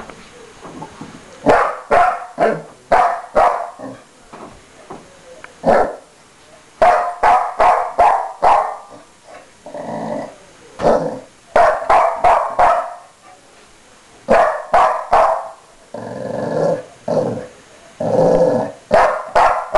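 Glen of Imaal terrier barking in volleys of short, sharp barks with pauses between, mixed with longer, lower growling barks about ten seconds in and again near the end. He is protesting at having his bone taken.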